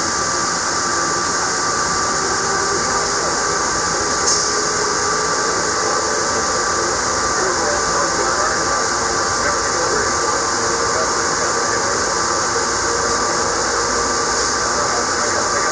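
Automated airport people-mover train running through a tunnel, heard from inside the car: a steady rushing hiss with a constant whine, and a single click about four seconds in.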